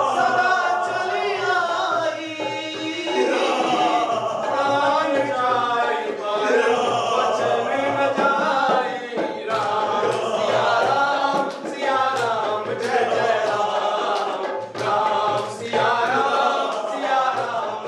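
A group of voices singing a devotional song to Ram in chorus, a chanted bhajan line sung over and over. A few sharp percussive strikes join in during the second half.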